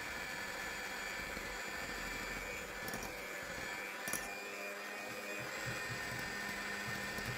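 Kenwood 250 W electric hand mixer running steadily, its beaters whisking stiffly beaten egg whites in a glass bowl as the yolks go in.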